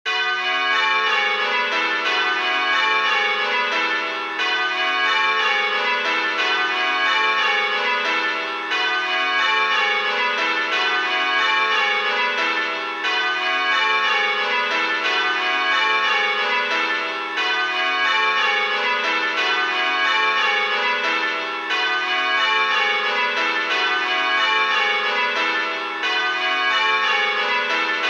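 A ring of six church bells, simulated by the Abel ringing software, rings in steady rows of change ringing. Each bell strikes in turn in an even rhythm, with a small pause about every four seconds at the handstroke.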